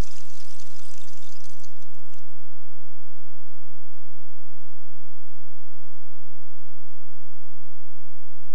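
Steady electrical hum from the stage sound system: a constant low drone with many even overtones. A fading wash of sound from the just-finished violin performance dies away in the first two seconds.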